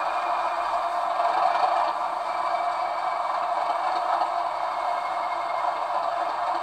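Steady mechanical hum and rattle from a running model railway, holding even without a break.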